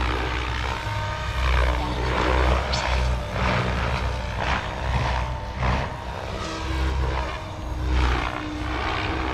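SAB Kraken 580 electric RC helicopter in flight: its rotor blades whoosh and its motor whines, swelling and fading over and over as it flies manoeuvres.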